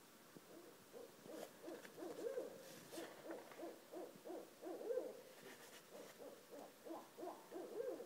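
A pair of barred owls calling back and forth: a long run of quick, wavering hoots, about three a second, beginning about a second in.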